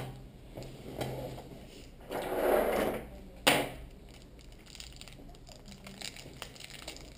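Hands handling a camera battery and its clear plastic holder. About two seconds in there is a brief scraping rustle, then a sharp plastic click, followed by small faint taps.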